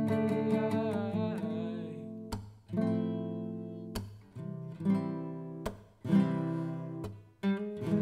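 Guitar strumming sustained chords in a live song's instrumental gap, with sharp muted strokes and brief stops between the chords.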